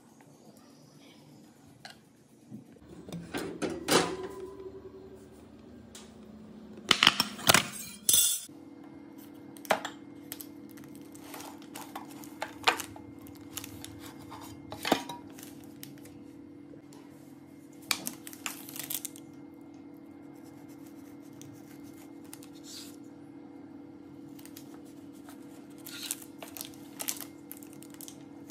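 Metal spoon clinking and scraping against an aluminium baking tin, with a cluster of loud sharp knocks a few seconds in, then scattered lighter knocks and clinks of the tin over a steady low hum.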